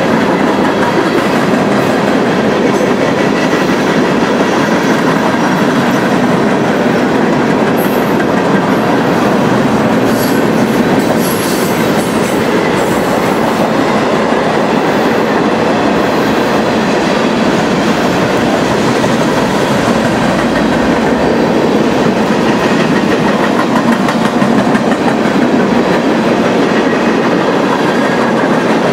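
Mixed freight train of tank cars, flatcars and covered hoppers rolling past close by: steady, loud noise of steel wheels running on the rails.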